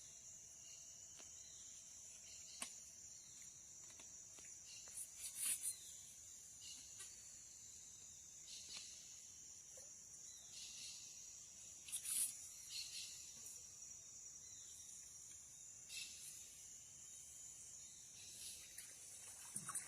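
A steady high-pitched insect chorus of the flooded forest, with a few brief louder sounds now and then, the loudest about five and twelve seconds in.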